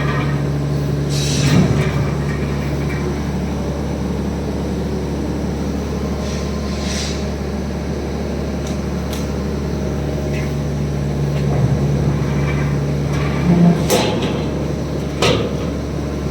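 Steady hum of sheet-metal factory machinery, with a few sharp metal clanks, the loudest about fourteen seconds in.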